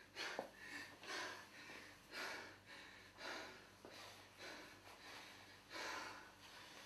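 A person breathing hard, with heavy, noisy breaths about once a second.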